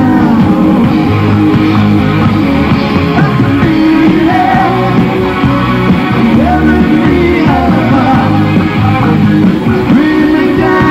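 A rock band playing live, with electric guitar and a man singing lead vocals.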